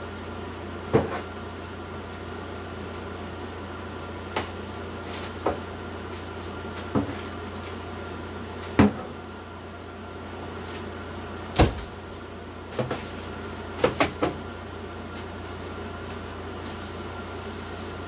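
Camper cabinet doors opening and banging shut, about ten sharp knocks and clunks spread out, with a quick run of three about two-thirds of the way through. A steady low hum runs underneath.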